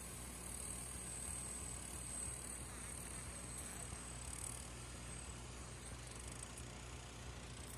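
Kubota M6040SU tractor's diesel engine running steadily as the tractor pushes soil with its front blade, growing slightly fainter in the second half as it moves away.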